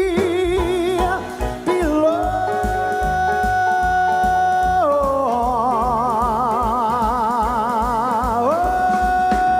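A male singer holding the long, drawn-out final notes of a song with the band playing under him: a wavering note, a jump to a high steady note, a drop to a lower note with wide vibrato, then a climb back up to a high held note near the end.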